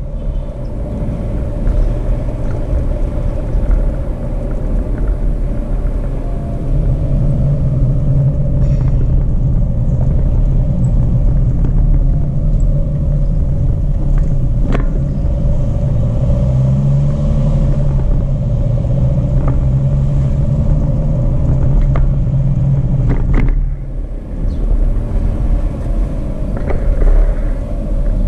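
Jeep Renegade driving on a dirt road, with a steady rumble of engine and tyres. A few sharp knocks are heard.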